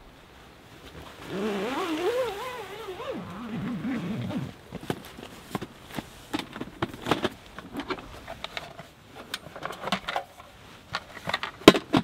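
A wavering pitched call lasting about three seconds. It is followed by scattered light clicks and knocks of gear being handled inside a tent, the sharpest one near the end.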